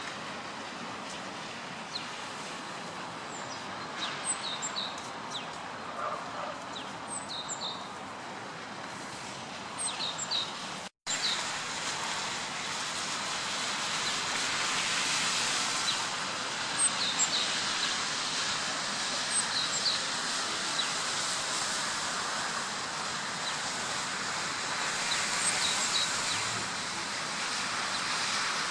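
Steady outdoor background noise with small birds chirping again and again in short high calls, often in pairs. About eleven seconds in, all sound drops out for a moment and comes back slightly louder.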